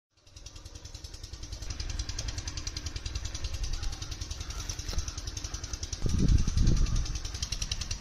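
An engine running steadily with a fast, even pulsing, and louder low rumbling bursts from about six seconds in.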